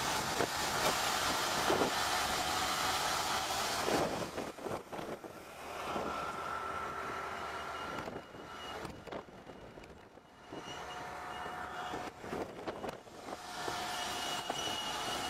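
Tractor engine running under load with a PTO-driven rotary bed former churning soil: a dense mechanical rumble with a faint steady gear whine, briefly quieter around the middle.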